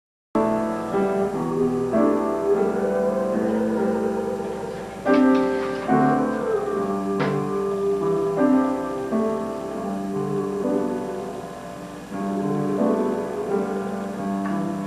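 Keyboard instrument playing slow, held chords that change about once a second, starting abruptly right at the beginning.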